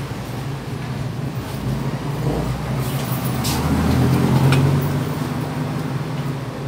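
Low, steady rumble of road traffic engines, swelling about four seconds in, with a few faint clicks.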